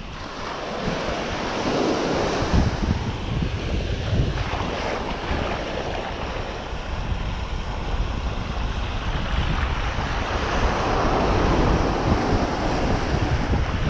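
Shallow ocean surf washing up a sandy beach, swelling louder about two seconds in and again near the end, with wind buffeting the microphone.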